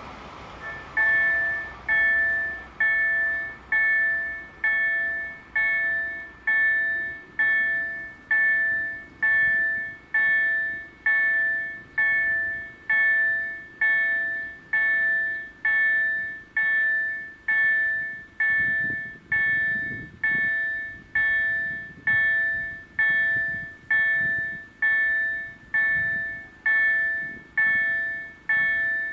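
Electronic warning bell (EDE-1) of a Polish level crossing sounding its alarm while the crossing is closed for a train. It strikes about once a second, each a ringing, multi-tone ding that fades, and starts about a second in.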